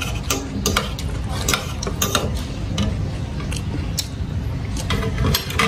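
Metal spoon and fork clicking and scraping against a ceramic plate as rice is gathered up, in irregular sharp clinks over a steady low hum.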